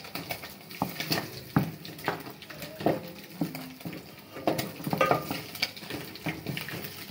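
Wooden cooking stick stirring and mashing thick mukimo in a metal pot, with irregular knocks and scrapes of the stick against the pot's sides.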